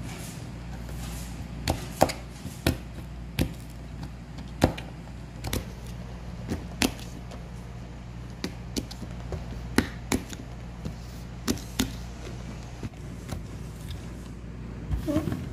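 Green chili peppers handled and dropped by hand onto a wooden tabletop and into a plastic basin: light, irregular knocks and taps, roughly one or two a second, over a steady low hum.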